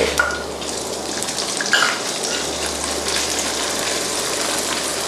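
Raw chicken pieces sizzling in hot oil and garlic in a nonstick wok, a steady hiss, with the spatula stirring and a brief clatter about two seconds in.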